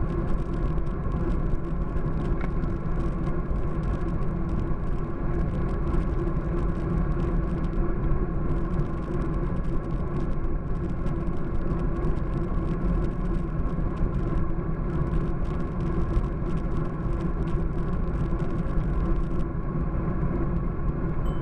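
Steady wind rush and road rumble from a road bike riding at speed, picked up by a camera mounted on the bike, with a constant low hum underneath.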